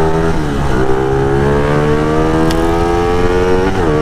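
Motorcycle engine pulling away under throttle: its pitch drops sharply about half a second in, climbs steadily for about three seconds, then drops again near the end and starts climbing, the pattern of upshifts through the gears.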